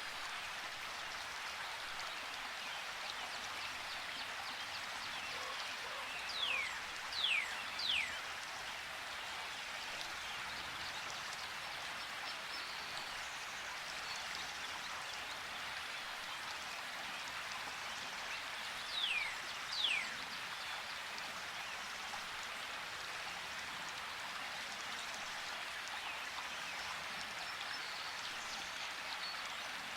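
Steady rushing of a river, with a songbird giving short, falling whistled calls: three in quick succession about six seconds in and two more about nineteen seconds in.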